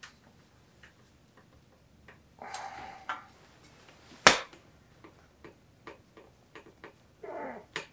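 Wrench working on the bottom bracket of a steel bicycle frame: scattered light metal clicks, two short scraping rubs, and one sharp, loud crack a little past the middle.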